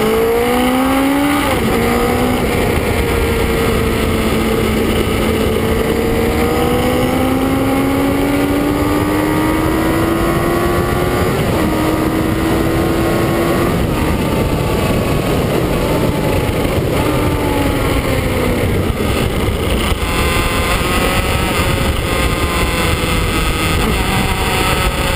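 Kawasaki ZX-9R's inline-four engine at speed on track under a constant rush of wind noise. There is a gear change about a second and a half in, then a long slow climb in pitch and two more changes around eleven and fourteen seconds; the engine note then drops away and builds again near the end.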